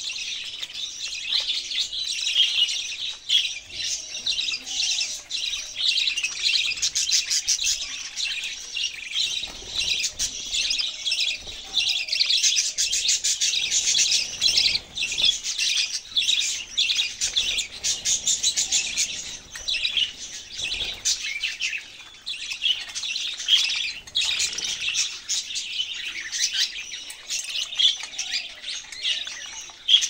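A flock of caged budgerigars chattering and warbling continuously: many overlapping fast chirps and twitters with no break.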